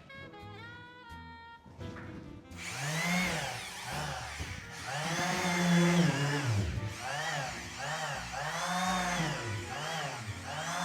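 A corded power tool's motor repeatedly spinning up and winding down, cutting in and out several times, from a faulty, intermittent power cable. Background music plays in the first two seconds before the motor starts.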